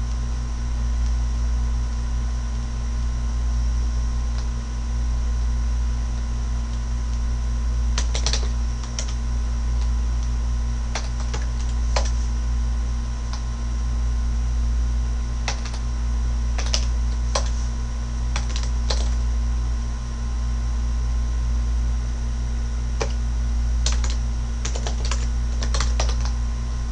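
Computer keyboard keystrokes tapping out a terminal command in scattered clusters with pauses between them. A steady low electrical hum runs underneath and is the loudest part of the sound.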